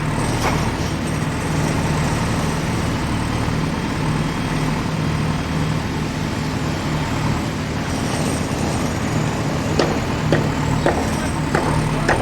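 Heavy vehicle engine running steadily at a constant low hum, with several sharp clicks or clanks in the last couple of seconds.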